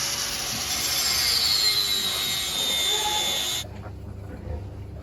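A loud steady hiss with a high whistle that slowly falls in pitch, cutting off suddenly about three and a half seconds in, after which only a low hum remains.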